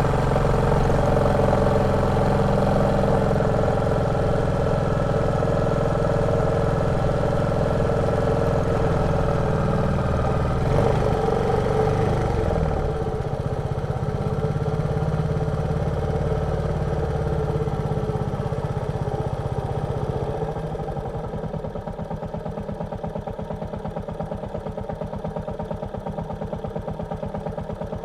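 Royal Enfield Meteor 350's single-cylinder engine running on the move with wind noise, easing off about twelve seconds in. About twenty seconds in it settles into a steady thumping idle.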